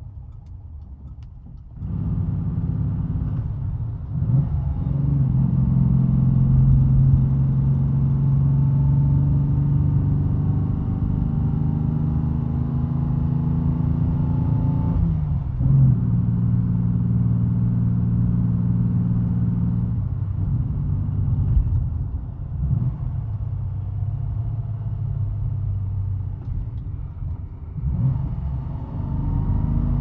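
The 2.3-litre straight-six of a 1967 Mercedes-Benz 230 (W110), heard from inside the cabin while driving. It is quieter for the first couple of seconds, then pulls hard with a slowly climbing note. The note falls away sharply at gear changes about halfway through, again a few seconds later and near the end, and picks up each time.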